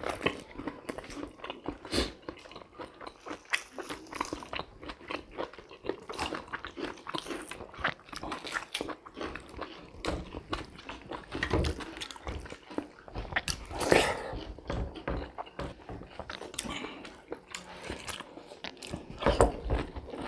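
Close-up eating sounds: biting and chewing of fried pork chop eaten by hand, a steady run of short wet clicks and crunchy bites, the loudest about fourteen seconds in.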